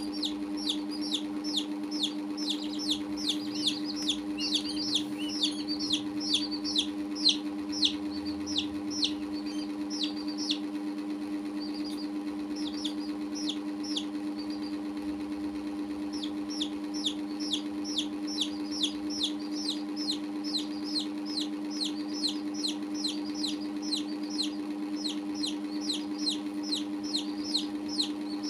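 Baby chicks peeping: a steady run of short, high, falling peeps, a few each second, that thins out for a few seconds about a third of the way through and then picks up again. A steady low hum runs underneath.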